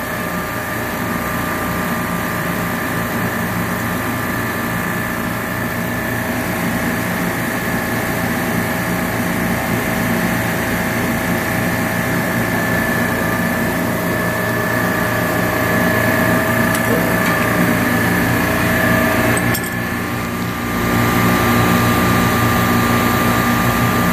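Steady drone of a supermarket refrigeration rack's compressors running, with a steady whine over a low hum; the noise dips briefly about twenty seconds in.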